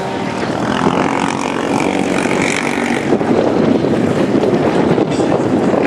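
Modified racing quad (ATV) engine revving hard as it accelerates, its pitch climbing, then running rougher and louder from about three seconds in, with wind on the microphone.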